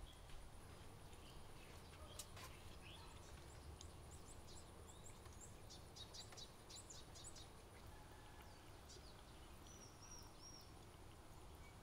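Faint bird chirps over a low background hum: a run of short high chirps in the middle, and a few brief whistled notes near the end.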